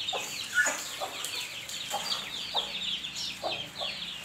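A flock of chickens: many young chicks peeping in a continuous chorus of high chirps, with adult birds giving short, lower clucks every second or so.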